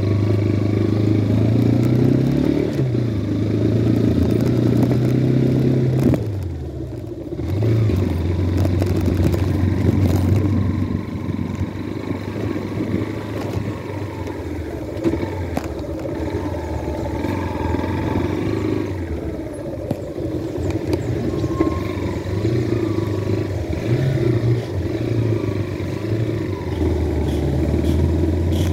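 Motorcycle engine running while being ridden, its pitch shifting with throttle and gear changes; it eases off briefly about six seconds in, then picks up again.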